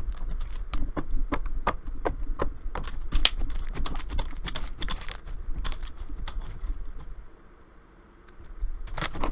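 Thick, glossy slime being stretched and squished by hand, giving quick, irregular clicks and pops. The clicking dies down for about a second around seven seconds in, then starts again near the end.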